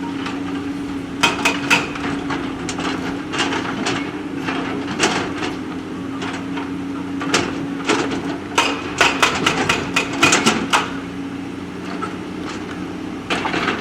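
JCB backhoe loader's diesel engine running steadily while its bucket knocks against stones, with sharp clanks and knocks coming in irregular clusters, thickest in the second half.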